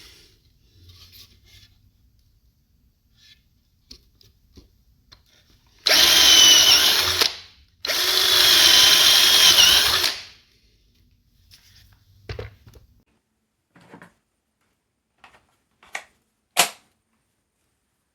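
KUZUPRO 21V cordless drill-driver's motor run in two bursts of about one and a half and two seconds, each with a high whine, the pitch of the second wavering. Light clicks and knocks of handling come before and after.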